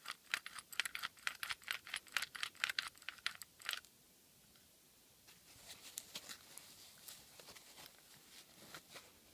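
Rapid clicking and rattling of a Master Lock 410 padlock's shackle being worked in and out of the freshly glued body, about four or five clicks a second for nearly four seconds, then fainter scattered clicks. The shackle is being checked to make sure it moves freely and has not been glued to the body.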